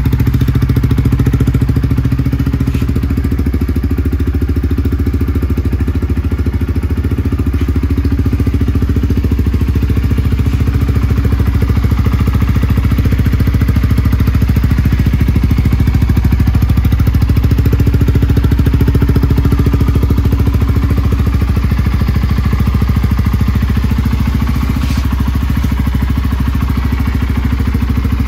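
Honda CBR125R's single-cylinder four-stroke engine idling steadily through a full Scorpion aftermarket exhaust.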